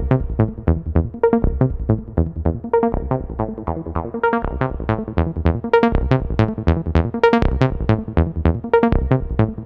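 Background electronic music: a steady run of short plucked synth notes, about four a second, over a pulsing bass.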